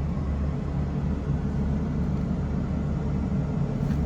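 Volvo EC220E excavator's diesel engine running steadily, heard from inside the closed cab as an even low rumble.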